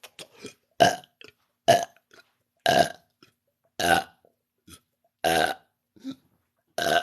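A woman burping, a run of about six short, loud burps roughly a second apart.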